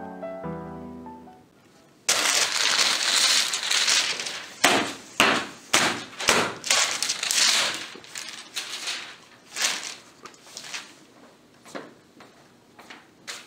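Music fades out, then about two seconds in a sudden loud crashing noise breaks in and trails off in a string of sharp cracks and knocks that grow fainter toward the end.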